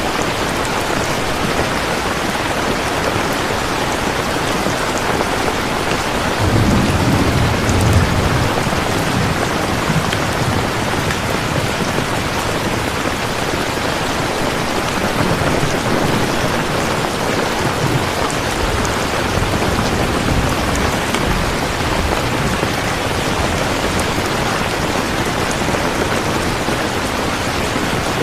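Steady rain falling, an even hiss of drops. A low rumble of thunder rolls in about seven seconds in, with fainter low rumbles later on.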